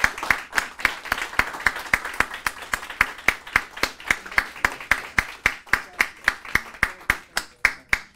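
Audience applauding, with one pair of hands near the microphone clapping loudly and evenly about four times a second over fainter clapping from the crowd. The clapping thins out and fades near the end.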